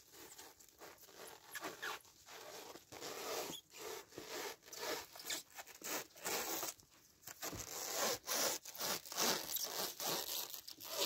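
Plastic stretch film being pulled off a hand roll and wrapped taut around a frame, a crackly rasping noise in repeated pulls that grow louder in the second half.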